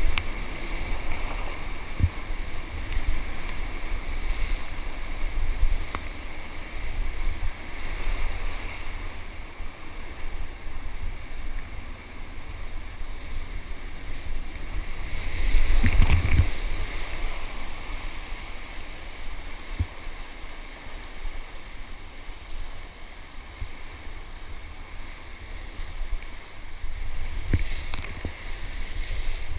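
Whitewater rapids rushing and splashing around an inflatable kayak, with a low buffeting rumble of wind and water on the microphone. Waves break over the boat in surges, the loudest about halfway through and another near the end.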